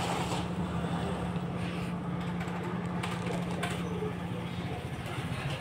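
A steady low hum that stops near the end, with light rustles and clicks from a wallet and a paper slip being handled.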